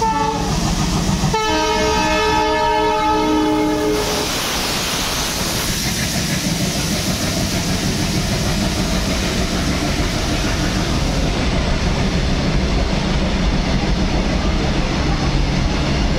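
An Indian Railways diesel locomotive gives a short horn toot, then a steady horn blast of about two and a half seconds as it passes. After that comes the continuous rumble and clatter of a long line of covered freight wagons rolling past at speed.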